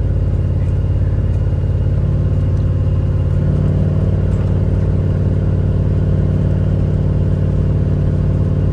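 Vehicle engine and road noise at driving speed, heard from inside the cab. The sound is steady, and the engine note rises a little about three and a half seconds in.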